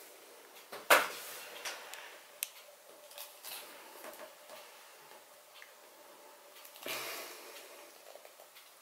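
Hands gripping and twisting a plastic Philips Sonicare DiamondClean toothbrush handle and the hot-glue stick glued into its base, trying to pull the sealed bottom out: scattered small clicks and creaks, a sharp knock about a second in, and a longer rustle near seven seconds.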